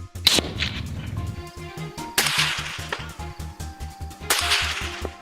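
Background music with a steady beat of about four pulses a second. Three sharp whip-like cracks cut across it: one just after the start, one about two seconds in and one about four seconds in, the last two each fading over most of a second.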